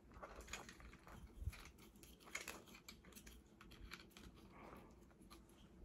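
Faint, irregular clicks and scrapes of small plastic toy parts being handled and pushed together, as an upgrade-kit forearm piece is worked into a Transformers action figure.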